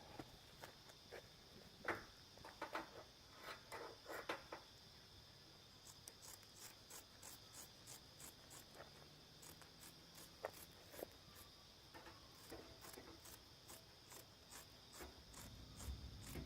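Faint chirping of insects: a steady high-pitched buzz, joined about a third of the way in by a fast, even pulse of about three ticks a second. A few soft clicks and rustles in the first few seconds.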